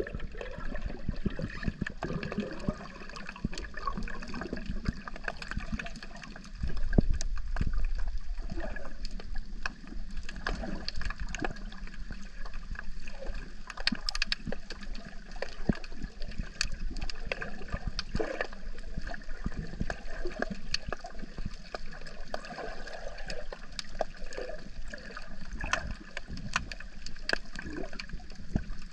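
Water gurgling and sloshing around a camera underwater, with scattered sharp clicks and crackles; it gets louder about seven seconds in.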